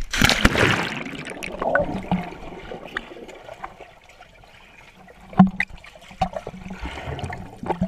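Splash as the camera breaks the surface of a swimming pool, then muffled underwater bubbling and churning water, with scattered clicks and knocks, one sharper knock about five and a half seconds in.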